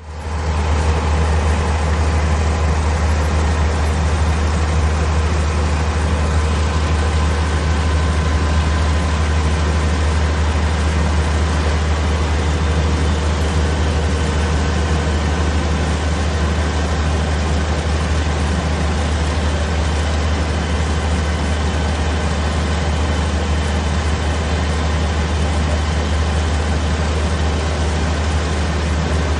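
Kubota WR575 combine harvester's diesel engine running steadily, a loud, even low drone with no revving.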